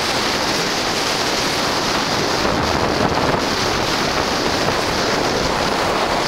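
Steady rush of wind on the camera microphone, mixed with the hiss of a snowboard sliding fast over snow.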